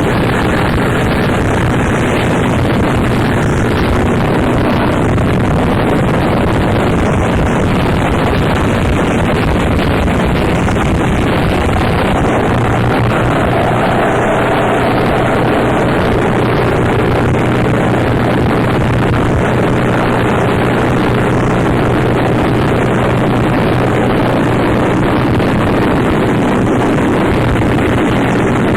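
Harsh noise music: a dense, loud, unbroken wall of distorted static, with a steady low drone underneath from about halfway through.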